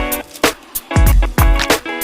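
Background music: a beat with deep bass drum hits about twice a second, sharp hi-hat ticks, and held chords.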